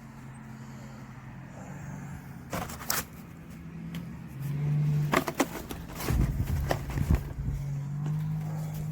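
A steady low machine hum that grows louder about halfway through, with sharp knocks and clatter of handling about three and five to seven seconds in.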